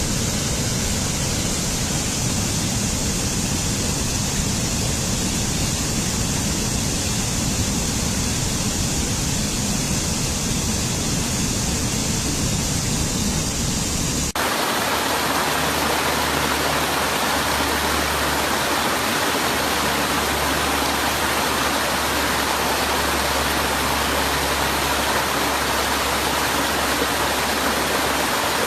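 Waterfall rushing, a loud, steady roar of falling water. About halfway through the sound changes abruptly to a different rushing water recording, with a steady low hum underneath.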